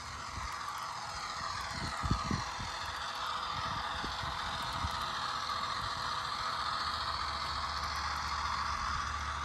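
HO scale EMD NW2 model diesel switcher running past, its sound decoder playing a steady diesel engine sound over the motor and gear whir and wheel noise on the rails. A couple of soft thumps come about two seconds in.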